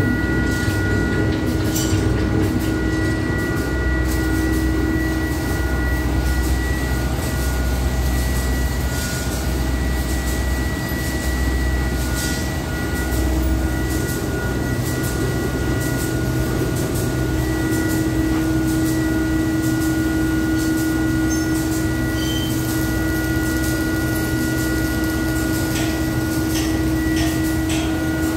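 Ribbon blender powder mixer running with its trough empty: the electric motor and belt-driven ribbon agitator give a steady mechanical hum with scattered light clicks.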